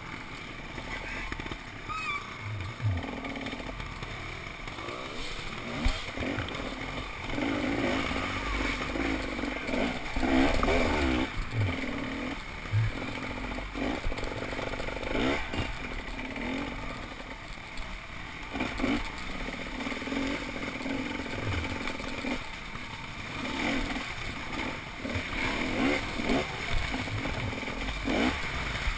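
Off-road motorcycle engine running under load, revving up and down as the bike is ridden over a rough, rocky woodland trail, with scattered knocks and clatter from the bike over the ground.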